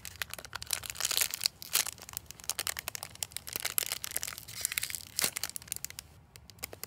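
A clear plastic packaging bag crinkling in quick, dense crackles as hands squeeze a foam squishy through it, thinning out near the end.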